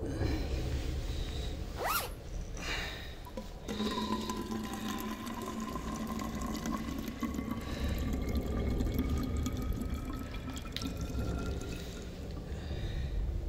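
Liquid running into a bottle, starting about four seconds in. The tone it makes rises slowly as the bottle fills, over a low rumble.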